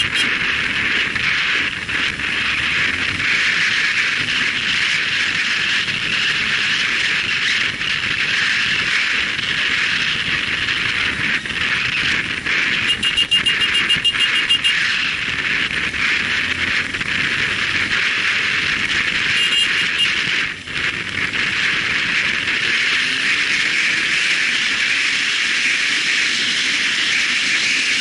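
Wind rushing over the microphone of a motorcycle-mounted camera, with the motorcycle's engine faintly rising in pitch as it pulls away. About halfway through, and again a few seconds later, there is a brief rapid high-pitched ticking.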